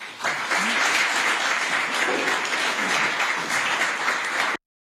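Audience applauding, beginning just after the start and cut off abruptly near the end.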